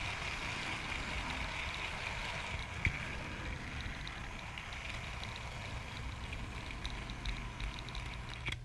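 Model railway locomotive running on battery power, its small electric motor giving a steady whine with light clicks of the wheels on the track.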